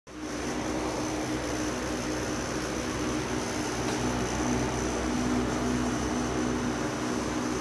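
Electric fan running steadily at speed: a continuous motor hum under the airy rush of the spinning blades.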